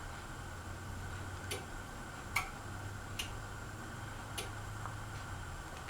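Hunter Westover ceiling fan running, with a steady low motor hum and a light tick about once a second.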